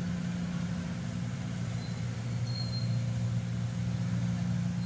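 A steady, low engine hum that holds even throughout, like a motor idling.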